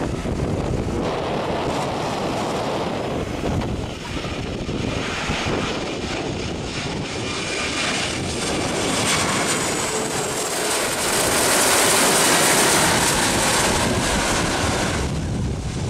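Twin-engine Airbus A330 jet airliner on final approach with landing gear down, its engine noise and high whine building as it passes low overhead, loudest near the end, then cutting off suddenly. Wind buffets the microphone at the start.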